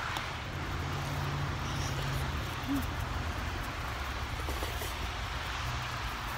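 Road traffic: a low vehicle engine hum over a steady hiss.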